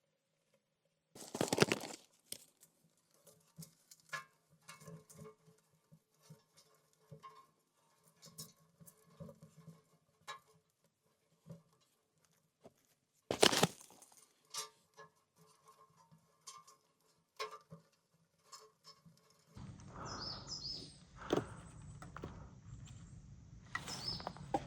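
Scattered light knocks and clicks, with two loud brief rustling bursts, one about a second and a half in and one about halfway. Near the end a handsaw starts cutting wood with a steady rasp.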